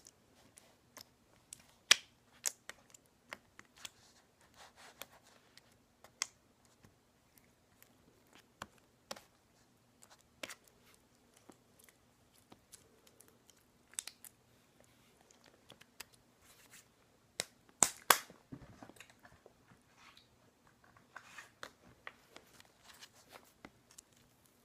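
Slime being stretched and poked by hand, giving scattered sticky clicks, pops and crackles, with the sharpest clicks about two seconds in and again around eighteen seconds.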